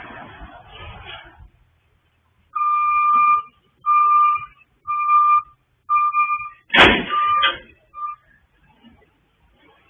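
Utility truck's reverse backup alarm beeping, a steady high beep about once a second while the truck backs up, stopping a little after the eighth second. A single sharp knock cuts in about seven seconds in, the loudest sound. Before the beeping, a hiss of noise fades out in the first second and a half.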